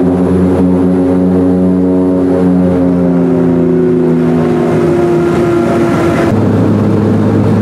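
Turboprop engine and propeller running, heard from inside the cabin as a loud, steady drone made of several stacked tones. The tones sink slowly in pitch, then switch abruptly to a different set about six seconds in.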